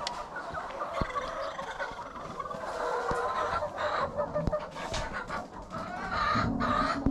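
A flock of white Lohmann Sandy laying hens clucking in their house, with many short overlapping calls and a louder, lower call near the end.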